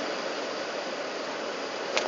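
Steady cabin noise inside an Airbus A380 airliner on approach: an even rush of airflow and engine noise.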